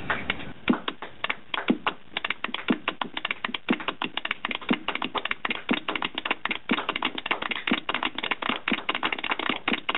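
Rapid typing clicks, like keys on a keyboard, with a heavier click about once a second.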